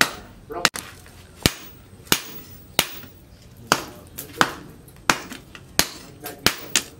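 Hand hammer forging a red-hot steel machete blade, cut from a tractor disc-plough disc, on a steel post anvil: a steady run of sharp metal-on-metal blows, about one to one and a half a second, with a quick double blow now and then and each strike ringing briefly.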